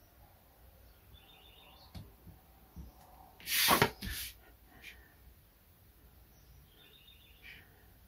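A sheet of drafting paper slid and rustled across the drawing board: one loud rustle of about a second, a little past halfway, after a few light taps.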